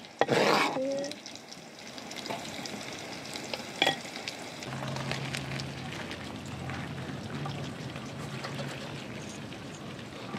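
A knife scraping chopped tomatoes off a cutting board in the first second. Then hot pasta and its boiling water poured from a pot into a plastic colander: a steady hissing, spattering crackle of water draining through the holes.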